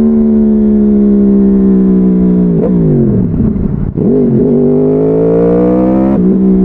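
2014 Yamaha YZF-R1's crossplane inline-four running through a Bodis slip-on exhaust on the road. The engine holds steady, then the revs fall away steeply about two and a half seconds in, climb again under throttle, and drop sharply near the end as with a gear change.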